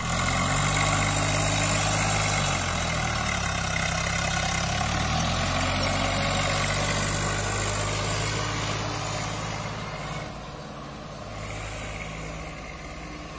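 Swaraj 744 FE tractor's three-cylinder diesel engine running under load as it pulls a fully loaded trolley away, its note shifting in pitch during the first few seconds. The sound drops in level after about ten seconds as the tractor moves off.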